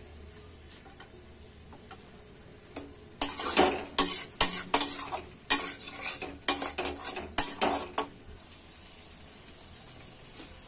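Metal spatula scraping and clattering against a metal kadai as mutton pieces are stirred and fried in spiced oil. It is a quick run of strokes from about three seconds in to about eight seconds, with faint sizzling of the frying meat before and after.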